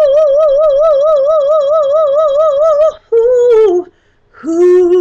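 A woman singing unaccompanied: one long held note with a wide, even vibrato of about six wobbles a second, then a short note sliding down, a brief pause, and a lower note near the end.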